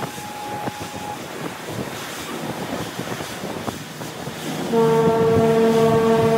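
A ship's horn sounds one steady blast that begins near the end. Before it come the rush of the pilot boat's wake and wind on the microphone.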